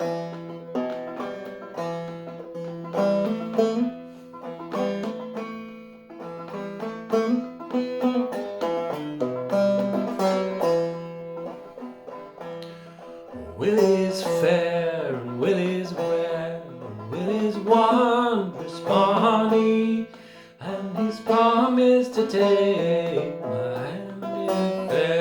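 Long-neck banjo played clawhammer style in a low open G-minor tuning (eBEGB), picking out a slow minor-key tune over ringing drone strings.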